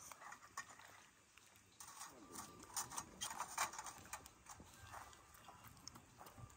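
Small dog licking and eating soft food off a spoon, with quick wet licks and the spoon lightly clicking and scraping against a small metal can.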